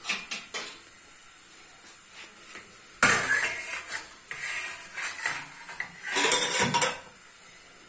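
Stainless steel colander clattering against the counter and the steel pots beside it as it is handled: a sudden clang about three seconds in that rattles on for a second, then another burst of clatter near the end.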